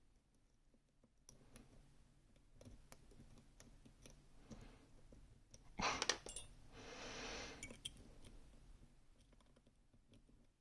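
Faint scattered clicks of lock picks working the sliders of a Gerda Exxo lock, with a louder clatter about six seconds in followed by a hiss lasting about a second.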